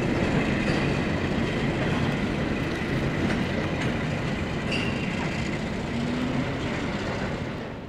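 Freight train cars rolling along the track, steel wheels clattering on the rails with a few brief thin squeals; the sound slowly fades toward the end.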